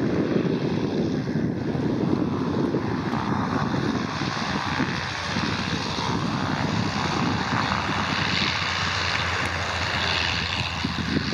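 Piston-engined propeller aircraft running steadily in flight.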